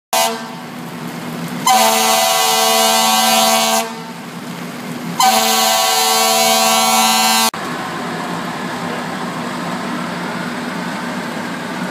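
Fire engine air horn sounding two long, steady blasts of about two seconds each. After an abrupt cut there is a steady rumble of idling fire apparatus and street noise.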